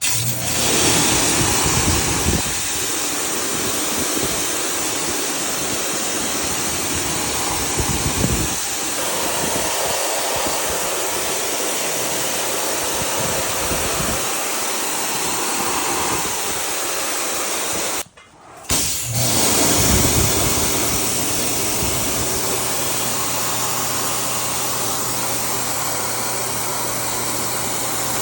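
High-pressure water spray hissing steadily while an air conditioner is washed. After a brief cut about two-thirds in, the hiss continues with a steady low machine hum under it.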